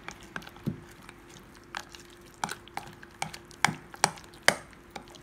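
Metal spoon stirring thick flour-and-milk batter in a glass bowl, clinking against the glass in about a dozen irregular sharp knocks. The loudest knocks come about three and a half to four and a half seconds in.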